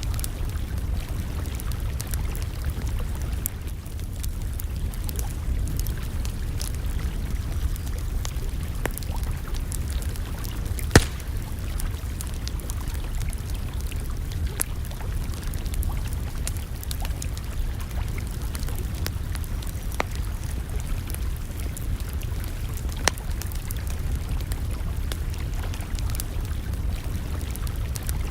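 Wood campfire crackling, with scattered sharp pops over a steady low rumble; one pop about eleven seconds in is much louder than the rest.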